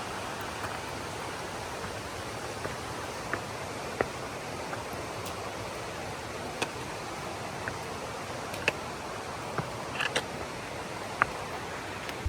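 Steady rush of water from a river or waterfall in a gorge, with scattered sharp clicks like hiking poles or boots on rock.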